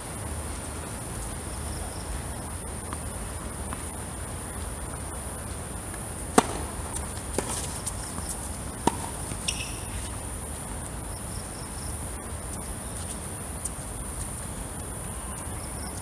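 A tennis racket strikes the ball three times during a rally, a second or so apart; the first strike is the loudest. Under it runs a steady high insect drone, likely crickets.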